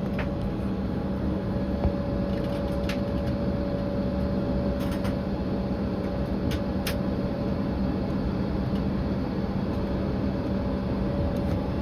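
Steady cabin hum of a jet airliner on the ground before takeoff: engine and air-conditioning noise with a constant mid-pitched tone over a lower drone. A few faint clicks come through it.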